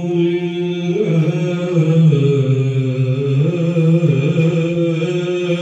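A man's voice chanting devotional verse, unaccompanied, in long held notes that step slowly up and down in pitch.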